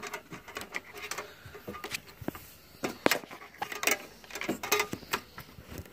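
Handling noise: fleece jacket fabric rustling and rubbing against the microphone, with irregular clicks and knocks.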